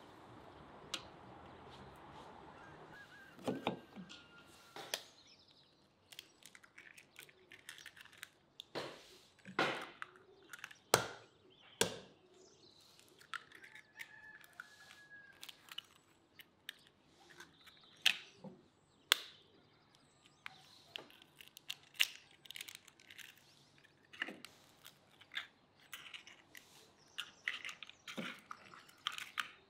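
Food preparation by hand: an irregular run of taps, clicks and knocks of utensils and dishes, with a few sharper, heavier knocks around ten to twelve seconds in.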